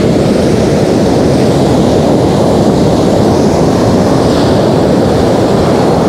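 Heavy ocean surf breaking and washing up a sand beach in a steady, loud roar, with wind buffeting the microphone.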